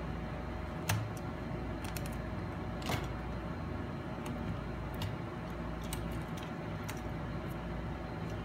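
Small clicks and taps of a tool and fingers working on a MacBook Pro logic board inside its aluminium case as the board is pried loose and lifted. Two sharper clicks come about one and three seconds in, over a steady low hum.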